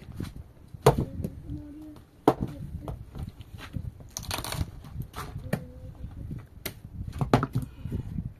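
Irregular knocks and clatter of objects being handled, with a short rushing noise about four seconds in.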